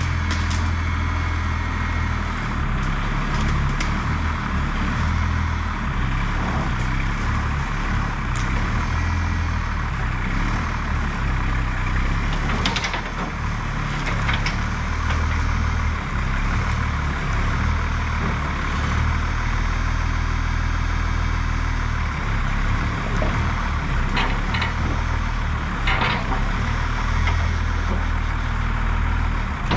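Cummins 6BT diesel engine of an old Oshkosh plow truck running as the truck creeps forward, its low hum swelling and easing every few seconds with the throttle. A few short sharp noises come through a little before halfway and again near the end.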